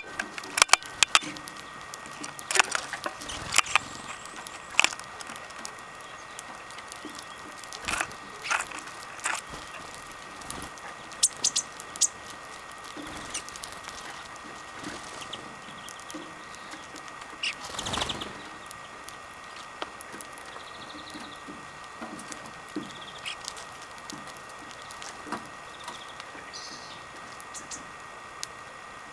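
Greenfinches cracking black sunflower seeds and pecking at the seed-filled plastic tray: irregular sharp clicks and small cracks, thick in the first dozen seconds and sparser later. There is a longer, louder rustle about eighteen seconds in.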